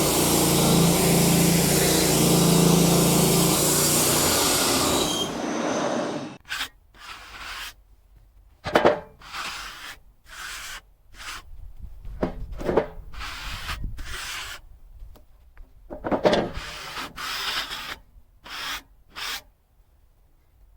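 Sawmill's engine running steadily, then shutting off about six seconds in. After that, wooden boards are rubbed and scraped in a series of short strokes as they are handled.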